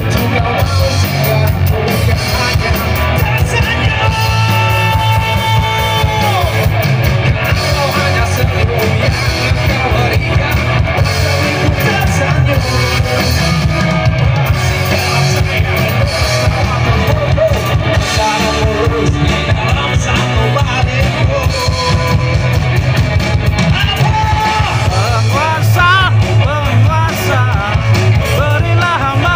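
Rock band playing live through PA speakers: electric and acoustic guitars over a drum kit, with a steady beat. A long held lead note comes about four seconds in.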